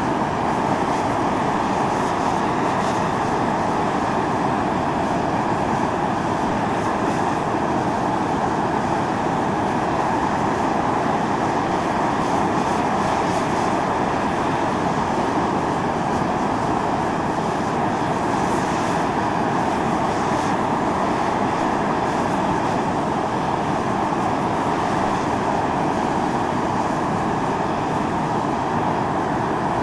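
Volcanic fumarole venting steam under pressure: a steady, unbroken hiss with its weight in the middle range.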